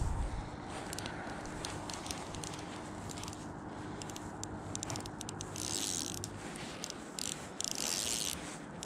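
Fly reel's click-and-pawl ratchet clicking in bursts as a hooked trout is played, the clicks running fastest in two stretches in the second half.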